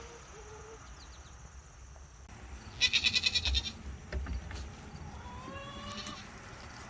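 A goat bleating: a loud, wavering call about three seconds in, then a fainter rising call near the end.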